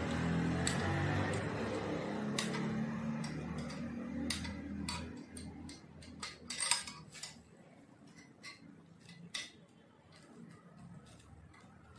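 Scattered metallic clicks and clinks of an Allen key working the screws at the joint of a steel stand's base, with a sharper cluster of clinks a little past the middle. A low background murmur fades out about halfway through.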